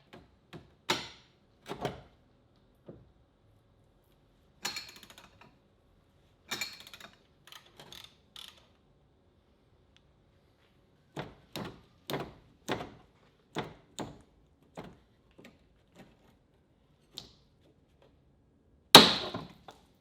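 Hand tools knocking and clanking on metal suspension parts. A run of about eight strikes roughly half a second apart is followed by one loud strike near the end.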